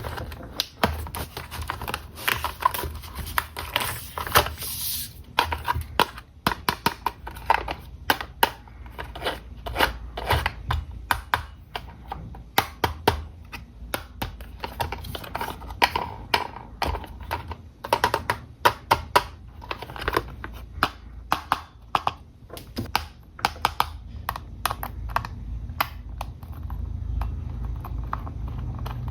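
Hands unboxing and handling an RC toy car and its packaging: rapid, irregular clicks and taps.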